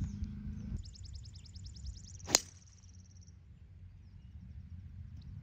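Golf driver striking a ball off the tee: a single sharp crack about two seconds in, with a rapid high trill running behind it.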